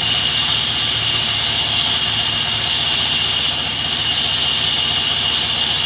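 Sawmill machinery running steadily: a constant mechanical drone with a high, even whine.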